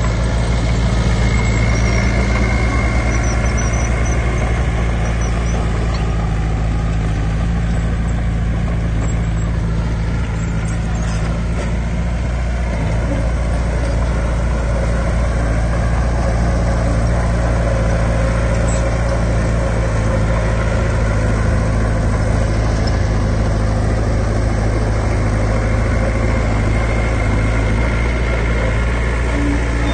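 A heavy earthmoving machine's engine running steadily at a low, even pitch with no break.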